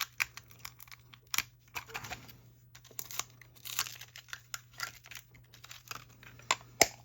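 Plastic toy packaging crinkling and tearing, mixed with many quick clicks and taps of small hard plastic pieces being handled.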